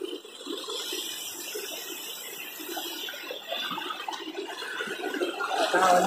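Water spilling over a low concrete dam wall: a steady, even rush of flowing water.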